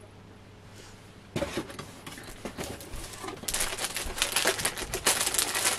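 Rustling and crinkling of packaging as a cardboard box is handled and its lid lifted open. A single knock about a second and a half in, then the crinkling grows denser from about halfway.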